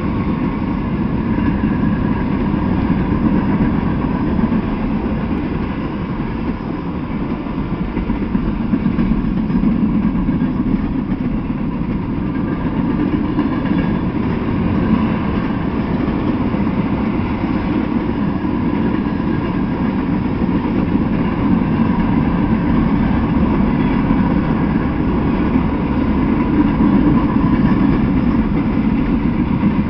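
Freight train of tank cars and boxcars rolling past on the tracks: steady, loud wheel-on-rail running noise.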